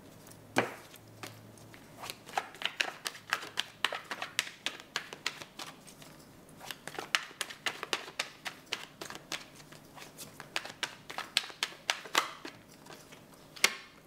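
A deck of tarot cards being shuffled by hand: a run of quick, irregular card flicks and slaps, with a louder snap about half a second in and another near the end.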